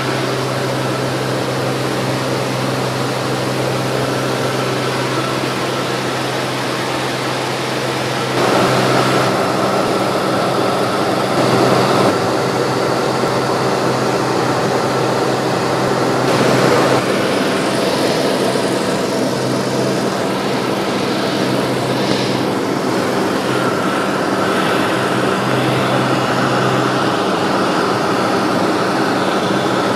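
Single-engine propeller plane in flight, heard from inside the cabin: a steady drone of engine and propeller, its tone shifting slightly a few times.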